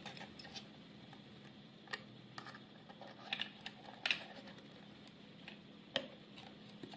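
Light clicks and ticks of small metal and plastic camera parts being handled and pried apart by fingers and a small metal tool, a scattered handful of them over a faint steady hum, the sharpest a little after four seconds and at six seconds.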